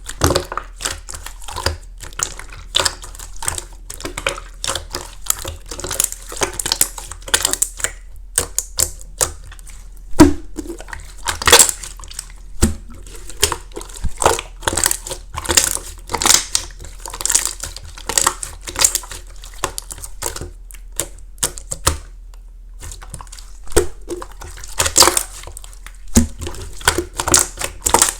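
Clear slime with flakes mixed in being worked by hand, giving irregular crisp crackles and clicks.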